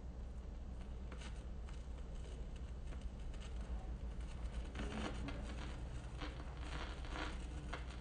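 Turntable stylus in the lead-in groove of a vinyl record: faint surface crackle and scattered clicks over a steady low hum, the crackle growing denser in the second half, just before the recorded bells start.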